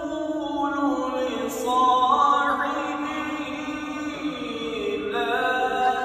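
Qur'an recitation (tilawat): a single reciter's voice chanting in long held notes that slide up and down in pitch.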